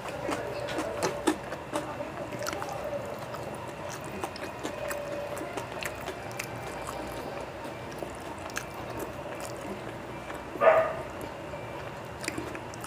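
Mouth sounds of eating by hand: chewing and lip smacks heard as many small clicks. There is a faint steady tone underneath, and one short, louder sound comes near the end.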